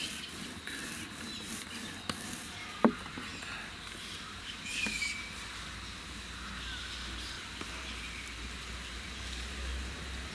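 Quiet room background with a few light clicks and one sharp knock about three seconds in, and faint short high chirps.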